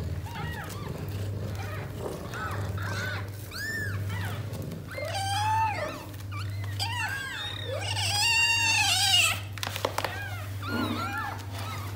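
Newborn kittens mewing over one another, many short high cries that rise and fall, as they cry for their mother and search for her belly to nurse. The cries grow louder and denser a little past the middle, with a few short clicks of handling toward the end.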